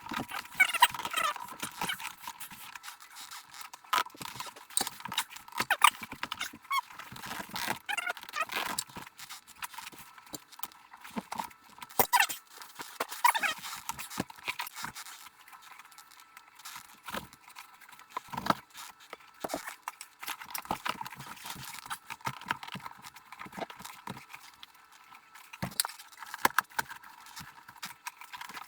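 Irregular clicks, knocks and scrapes of hands working a CB radio into a fabric-lined centre console.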